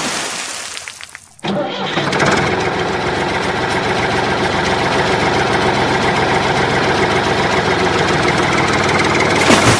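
Tractor engine running steadily at an even speed. It comes in abruptly about a second and a half in, after a louder sound fades out.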